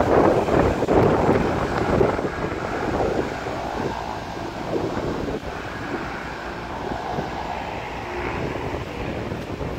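A floatplane's engine running through its takeoff run on the water, mixed with wind buffeting the microphone. The gusts are loudest in the first few seconds, then the sound settles to a steadier, lower rumble.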